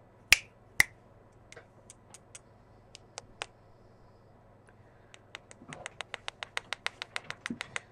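Sharp taps on a Samsung Galaxy J5 phone, made to test whether its newly fitted microphone records: two loud clicks at the start, a few scattered taps, then about five seconds in a quick even run of about seven taps a second.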